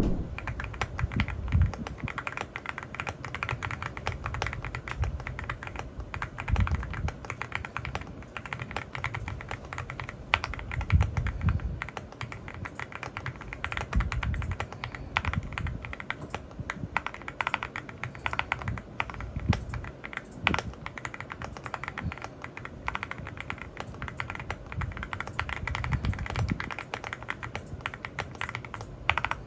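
Typing on a Leobog Hi75 aluminum keyboard with Graywood V4 switches and GMK Sumi keycaps: a continuous run of keystrokes, with deeper, heavier strokes now and then.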